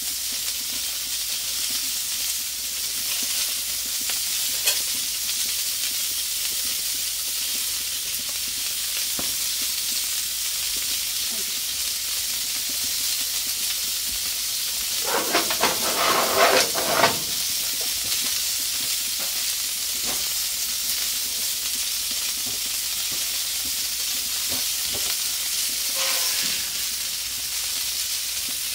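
Food sizzling steadily on a Blackstone flat-top griddle. About halfway through, a metal spatula scrapes and clatters on the griddle top for a couple of seconds.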